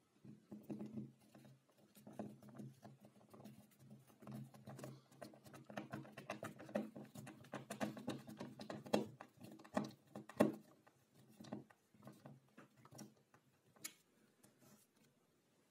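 Hand screwdriver turning a small screw into an aluminium track, a quick run of faint clicks and scrapes over a steady low hum.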